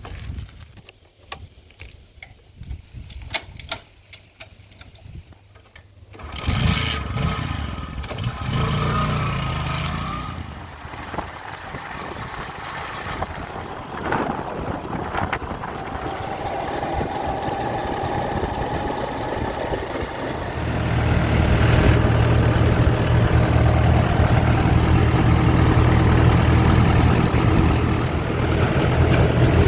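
Diesel engine of heavy machinery. It is faint at first with scattered clicks, comes in suddenly about six seconds in, and runs louder and steadier from about twenty seconds in.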